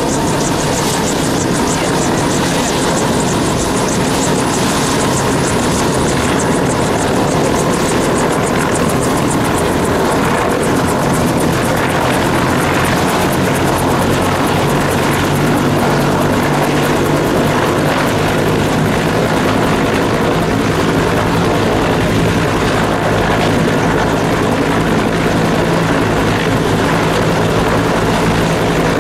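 Bell AH-1S Cobra helicopters running their T53 turboshaft engines on the ground during start-up: a steady turbine whine and hum under the rhythmic beat of turning rotors, the beat getting faster as the rotors spin up.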